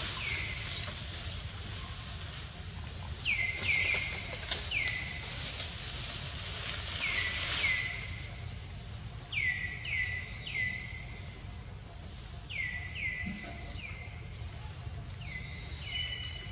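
A bird calling in short falling whistles, each sliding down and ending flat, in groups of two or three repeated every few seconds, over a steady high hiss of forest background.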